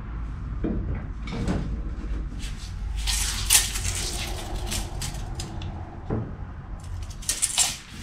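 Hands working at a car's rear wheel: light clatter and rustle of tools and gloves, with two short hissy bursts, one about three seconds in and one near the end, over a steady low hum.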